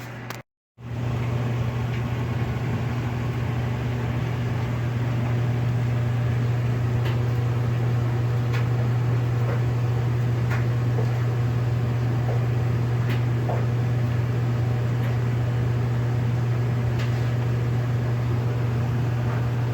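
Steady motor hum with a low drone, and faint ticks now and then.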